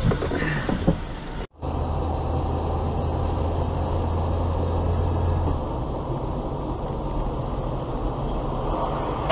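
Steady road and engine noise inside a moving car at about 55 km/h, with a low drone that stops about five and a half seconds in. The sound cuts out for a moment about a second and a half in, where one vehicle's cabin noise gives way to the next.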